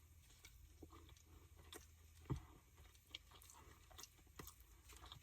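Mostly near silence, with faint chewing and a few soft mouth clicks from eating a tamale.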